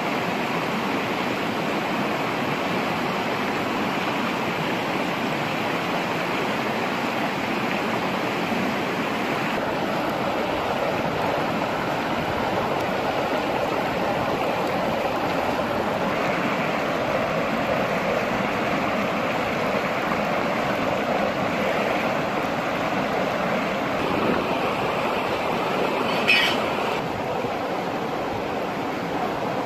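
Steady rushing of a shallow river flowing over rocks, with one short sharp knock near the end.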